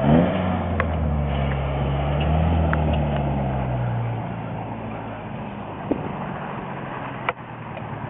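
A motor vehicle engine running, rising in pitch at the start, holding steady for about four seconds, then fading away.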